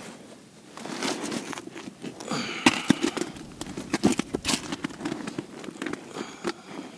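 Close rustling and crackling of a winter jacket sleeve and a plastic bag, with scattered sharp clicks and small knocks, starting about a second in.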